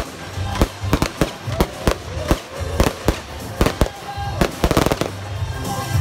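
Fireworks shells bursting in quick succession, a dozen or so sharp bangs at about two a second, over a music soundtrack. The bangs thin out near the end.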